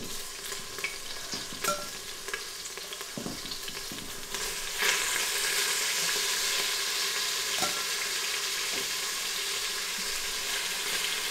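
Beef pieces sizzling as they brown in hot oil in an Instant Pot's stainless steel inner pot on Sauté. In the first half, metal tongs click as pieces are laid in. The sizzle grows louder and steadier a little before halfway.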